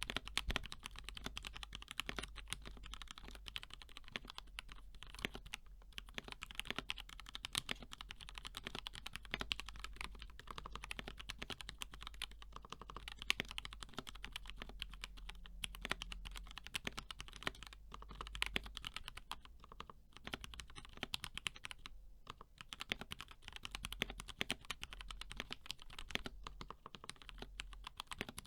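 Continuous fast typing on a custom 60% mechanical keyboard with lubed and filmed KS3 Black linear switches on an aluminum plate, in a BM60 case with HK Gaming Bow keycaps. A steady stream of key strikes, with a couple of brief pauses about twenty seconds in.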